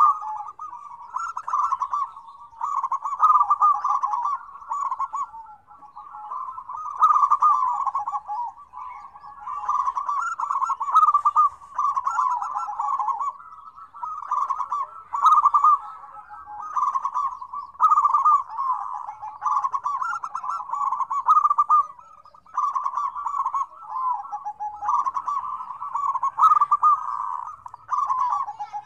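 Several zebra doves (perkutut) cooing together, their rapid trilling coos overlapping in near-continuous bouts a second or two long, with short pauses between.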